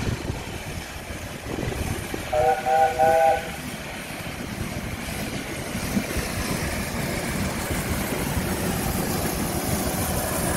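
Steam locomotive whistle sounded as three quick toots about two seconds in, a short blast of several steady tones at once. Around it, the steady rumble of a small tank engine and its wagons running along the track, growing a little louder as the train comes past.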